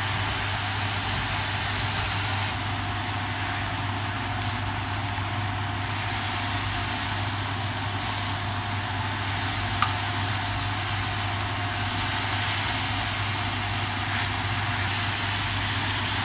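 Thin slices of beef sizzling in a hot nonstick frying pan, a steady even hiss, over a steady low hum. A single light click near the middle.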